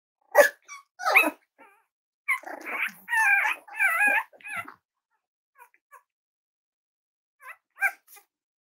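Cavalier King Charles spaniel puppies yipping and barking as they wrestle in play: two sharp yips in the first second or so, then a run of high, wavering yips and whines from about two to five seconds in, and a few fainter yips near the end.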